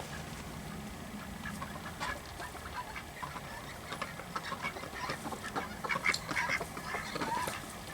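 Several Khaki Campbell ducks quacking in a scatter of short calls, which grow busier over the last few seconds.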